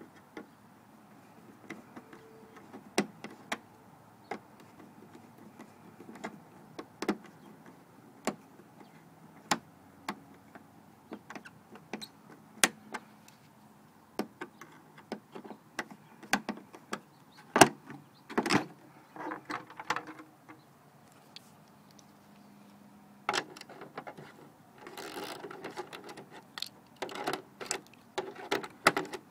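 Flathead screwdriver clicking and scraping in the screw of a plastic Verizon Fios optical network terminal box, in irregular sharp ticks. Denser rattling and scraping of the box's plastic cover comes about two-thirds of the way through and again near the end.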